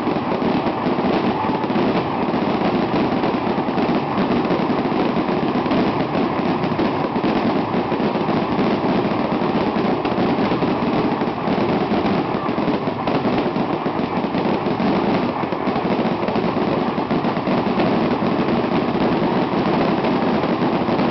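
Fireworks display at full barrage: a dense, unbroken rattle of bangs and crackling from aerial shells and ground fountains, with no pause.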